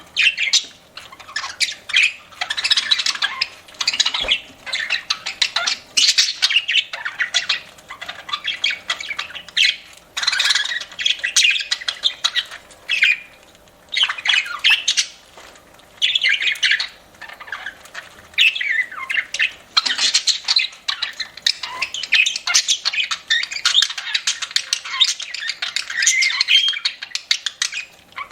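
Budgerigars chattering and squawking in busy bouts a few seconds long, with brief pauses between.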